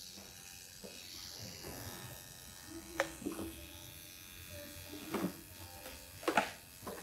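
Permanent-makeup tattoo machine buzzing steadily as its needle works pigment into the upper lash line for an eyeliner tattoo. A few short, sharp clicks break in about three seconds in and twice near the end.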